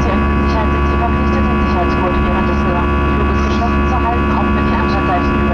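Airbus A320 engine at high thrust heard from inside the cabin: a loud, steady drone made of many even tones over a roar, the buzzsaw-like buzz of the fan blade tips running faster than sound.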